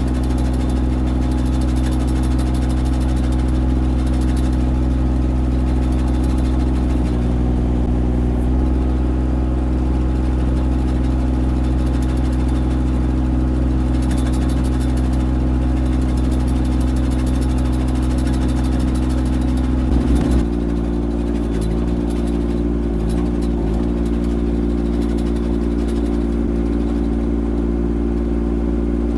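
Diesel engine of a Kymron XH20d mini excavator running steadily. Its note shifts about seven seconds in, and again about twenty seconds in with a brief clatter of knocks.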